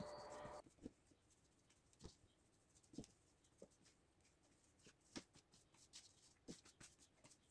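Near silence, with faint scattered soft pats and light thuds of hands pressing and folding sticky bread dough on a floured silicone mat.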